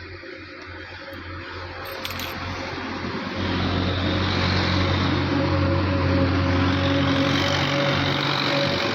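Steady machine noise, a hiss over a low hum, growing louder about three seconds in and then holding.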